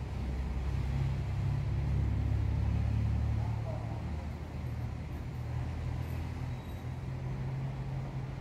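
Low, steady background rumble, strongest over the first three and a half seconds, then easing off.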